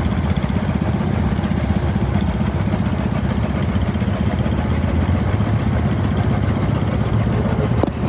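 Small garden tractor engines running steadily as the tractors pass at parade speed: an even, fast chugging rumble with no change in speed.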